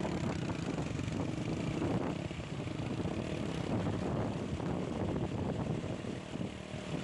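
Fast brown floodwater rushing and churning over a submerged road, a loud, steady wash of noise, with wind buffeting the microphone.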